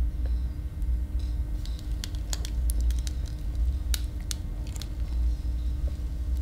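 Paper burning in a sink, crackling with irregular sharp snaps through the middle, over a deep steady rumbling drone and a low hum.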